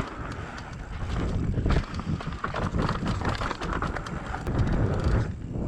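Giant Glory downhill mountain bike running fast down a rough dirt trail: tyre roar and knocks and rattles over bumps, with wind buffeting the microphone. The rear tire is leaking and running soft.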